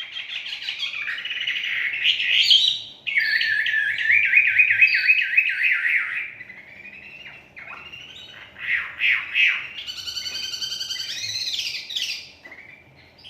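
A caged wambei songbird singing a loud, busy song of rapid trills and fast repeated notes that keep changing in pitch, with a short lull about halfway through.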